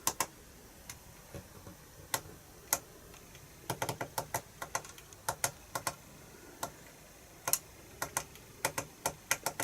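Buttons on a FrSky Taranis radio transmitter clicking as its mixer settings are edited: scattered single clicks and short quick runs of presses.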